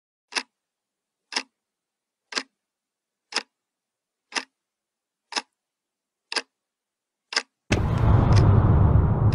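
Quartz wall clock ticking once a second with sharp, clear ticks, eight in all. About eight seconds in, a loud, bass-heavy swell of background music comes in suddenly, with the ticking going on faintly beneath it.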